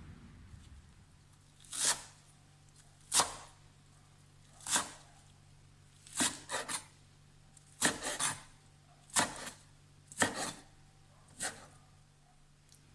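A knife cutting on a wooden chopping board in slow, separate strokes, about ten of them a second or so apart, some coming in quick pairs.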